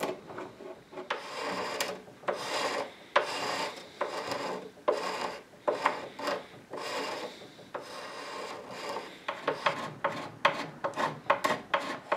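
A hand tool rasping and scraping along the edge of an antique desk's wooden board to take off leftover epoxy, in repeated strokes about one every 0.7 s. After about nine seconds the strokes turn short and quick, with light ticks.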